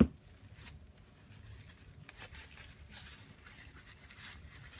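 A sharp knock right at the start, then faint, scattered rustling and rubbing as a paper towel wipes hot melted embossing enamel out of a metal melting pot.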